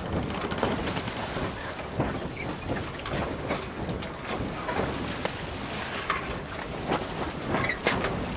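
Wind noise on the microphone with scattered small ticks and taps, irregular and without any steady rhythm.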